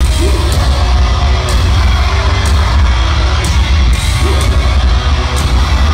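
Metalcore band playing live through a venue PA, heard from the crowd, with a heavy, bass-laden mix and a sharp hit about once a second.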